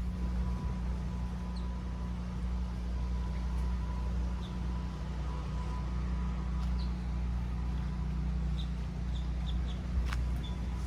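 Steady low hum of a portable generator engine running, with faint short bird chirps over it.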